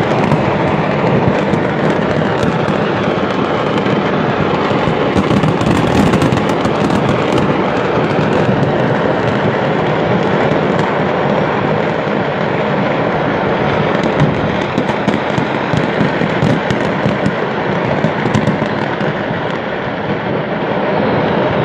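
A stockpile of thousands of fireworks exploding: a loud, continuous crackle dense with sharp pops and bangs, thickest about six seconds in and again between about fourteen and eighteen seconds.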